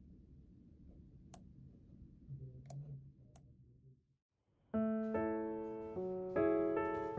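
Faint room sound with a few sharp clicks, then after a short gap background piano music starts about four and a half seconds in, struck notes and chords that ring and fade.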